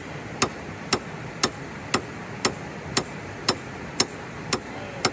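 Sharp, evenly spaced knocks about two a second from a tool striking something hard over and over, over a steady background hiss.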